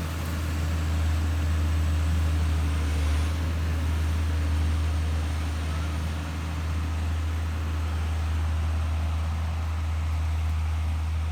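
Diesel engine of a Timberjack 1070 forest harvester running steadily at a constant speed, a deep even hum with no revving.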